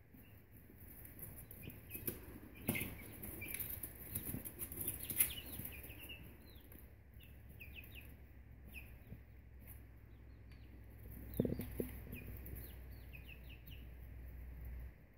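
Buff Orpington chicks, nearly three weeks old, peeping in short, high, falling chirps that come thick and fast through the second half. Soft taps and rustling come early on, and a single knock about eleven seconds in.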